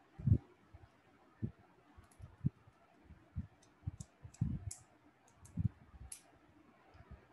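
Scattered light clicks, about a dozen, bunched from about two seconds in to about six seconds in, among soft low thumps.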